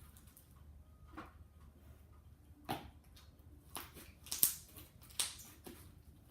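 Homemade slime being squished and stretched by hand, giving a run of short sticky clicks and pops that come closer together in the second half.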